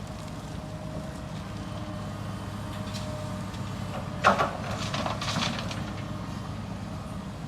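Heavy construction machinery running with a steady engine drone. A sharp loud clank comes a little past four seconds in, followed about a second later by a short burst of rattling knocks.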